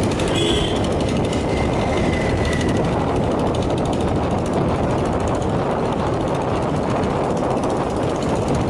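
Motorbike ride noise: the bike's engine running steadily under way, mixed with wind and road rumble on the microphone.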